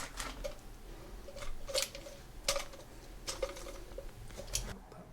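A handful of sharp clicks and small knocks, spread irregularly over a few seconds, as plastic and metal toilet-cistern fittings are handled and worked loose by hand.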